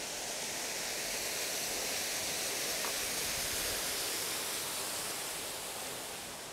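Water rushing and splashing at a water wheel: a steady hiss that swells a little in the middle and fades near the end.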